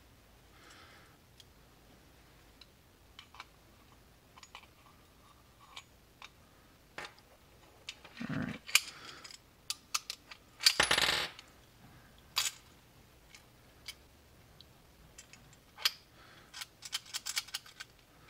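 Steel parts of a 1911A1 pistol being reassembled by hand: scattered metal-on-metal clicks and clinks, with two short scraping slides a little under halfway through as the slide is run onto the frame, and a quick run of clicks near the end as the recoil spring is worked in.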